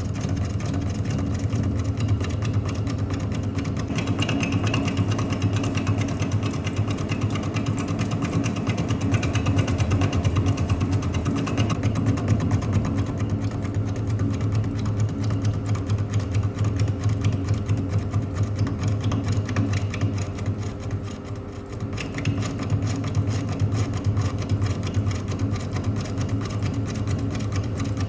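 Lathe turning the end of a hydraulic cylinder rod with a button insert on an interrupted cut: a steady machine hum under a fast, even clatter of the tool meeting the uneven face. The sound drops briefly about three quarters of the way through.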